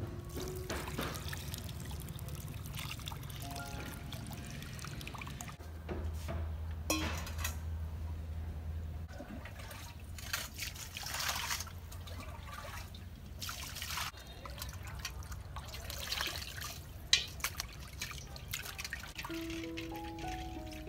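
Coconut water trickling from a freshly opened green coconut into a bowl, then water splashing and sloshing in a metal basin as hands rinse food in it.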